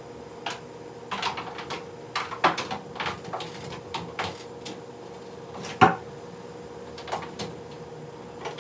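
Irregular light knocks and clicks, like household objects being handled, over a steady low hum; one sharper knock comes a little before six seconds in.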